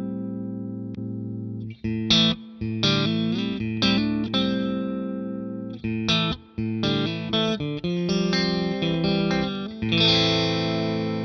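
Stratocaster-style electric guitar playing a run of chords and picked phrases through a Strymon Compadre compressor in its transparent Studio mode with compression at maximum. A final chord about ten seconds in rings on.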